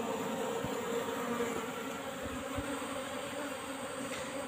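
Steady buzzing hum of a large mass of Asian honey bees (Apis cerana), stirred up after their nest was opened and the combs cut out.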